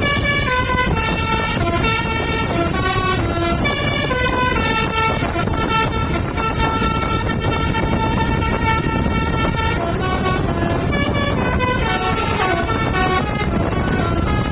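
Basuri V3 telolet musical air horn on a bus playing a melody: a run of horn notes stepping up and down in pitch, over steady low engine and road noise.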